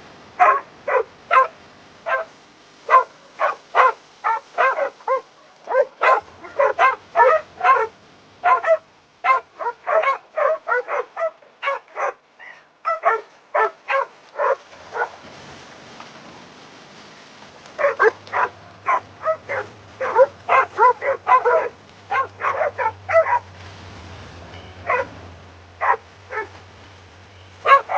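Dog barking and yipping excitedly in rapid runs of several short barks a second, with a break of a few seconds about halfway, then only a few scattered barks near the end.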